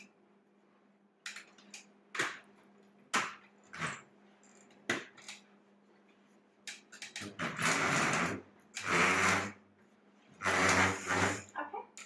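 Aluminium walker knocking and scraping on a vinyl floor as a man with Parkinson's shuffles forward with it: single sharp knocks in the first half, then three longer rasps of under a second each. A faint steady hum runs underneath.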